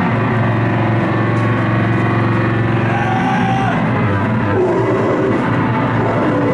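Harsh noise performance on a table of effects pedals and electronics: a loud, dense wall of distorted noise over steady low drones, with held higher tones that shift about two thirds of the way through.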